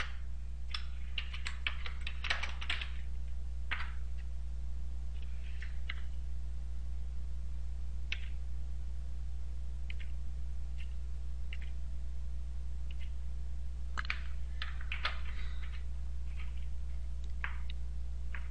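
Computer keyboard keystrokes: a quick run of key presses about a second in, scattered single presses after it, and another run past the middle. A steady low hum runs underneath.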